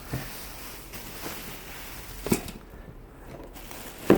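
Handling noise of clothing being moved about: soft rustling with a few sharp knocks, one a little over two seconds in and the loudest near the end.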